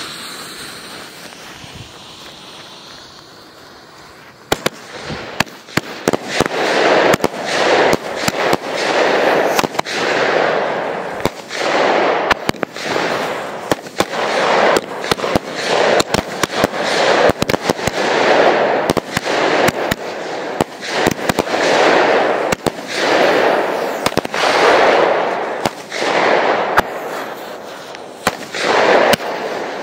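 A firework fuse hisses, then from about four seconds in a firework battery fires a long run of shots: sharp cracks over hissing swells that come roughly once a second.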